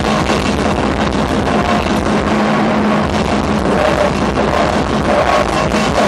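A rock band playing live at full volume: electric guitar and drum kit in a continuous dense wall of sound, recorded on a VHS-C camcorder.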